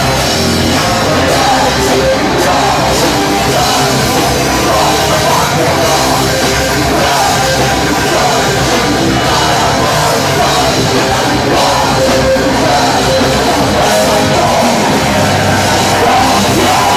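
Live heavy rock band playing loudly, with drums and electric guitar.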